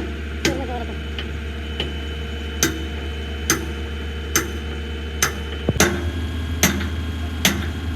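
Hammer striking metal in steady blows, about one a second, each with a short ring, over a steady low hum.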